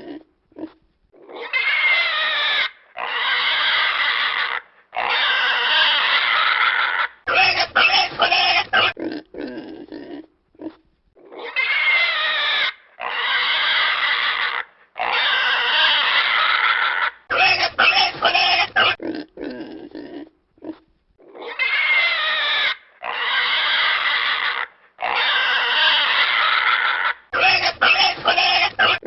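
Pig squealing: three long squeals in a row, then a quick run of short grunts. The same sequence repeats about every ten seconds.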